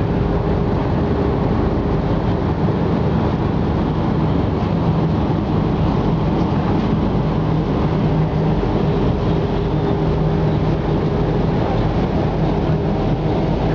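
Steady drone of engines on a car ferry at its berth: a low hum holding one pitch under an even rush of noise.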